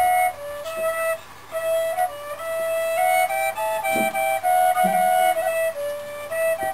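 Wooden double flute played solo: a slow melody of held notes, at times with two notes sounding together.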